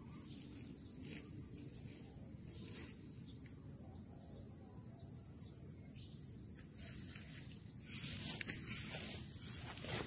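Faint outdoor ambience: a steady low rumble under a thin high hiss, with no bird calls. About eight seconds in, a louder rustling noise with a few small clicks comes in.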